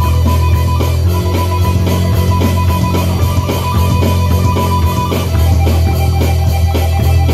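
Electric guitar and electronic drum kit playing an instrumental rock jam: a low guitar riff over a steady drum beat, the guitar shifting pitch about a second in and again about five seconds in.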